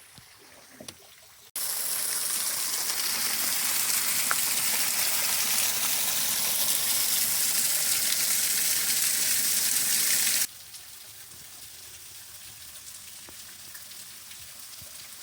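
Waterfall splashing: a steady, loud rush of falling water that cuts off suddenly about ten seconds in to a quieter, farther rush. The first second and a half is faint, with a few light knocks.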